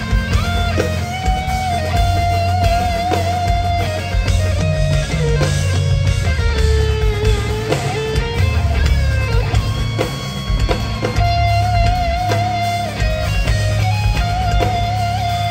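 Instrumental progressive metal played live: a distorted electric guitar holds long, slightly wavering lead notes over heavy low guitar and bass and busy drums.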